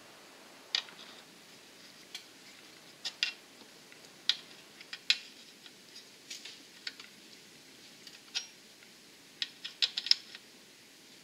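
Small steel wrench clicking and clinking against a fitting on a Lycoming aircraft engine as it is worked loose, in scattered sharp metal clicks with a quick run of them near the end.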